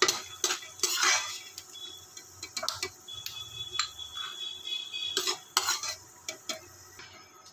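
Perforated steel slotted spoon scraping and knocking against a kadhai as fried peanuts are scooped out of ghee, with sharp clinks coming in bunches near the start and again about two-thirds of the way through.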